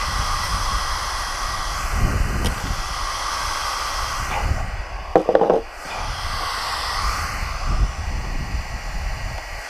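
Outdoor wind rumble on the microphone, with a short pitched sound about five seconds in.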